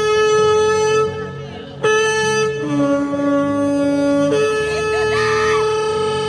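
Shofar blown in long held blasts. A steady note breaks off about a second in and starts again. The horn then drops to a lower note for about a second and a half and comes back up to the first note, holding it.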